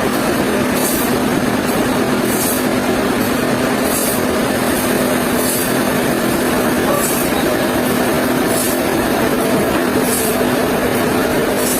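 Sawmill machinery running steadily: a dense mechanical noise with a constant hum and a short high hiss that recurs about every one and a half seconds.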